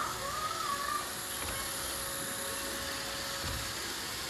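Roomba robot vacuum running across a tile floor: a steady whir and hiss from its motors and brushes, with a faint steady hum.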